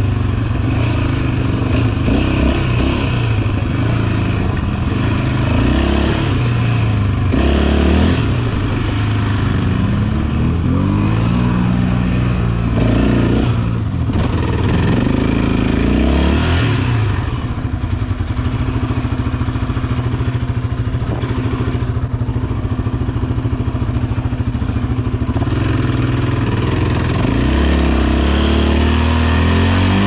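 Yamaha Raptor 700 quad's single-cylinder four-stroke engine running under way, its pitch rising and falling several times as the throttle is opened and closed, with steadier stretches between.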